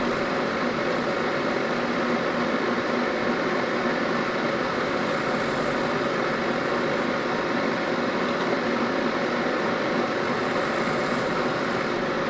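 Vertical milling machine running steadily, its end mill cutting flats on the end of a metal bar held in the vise to square it.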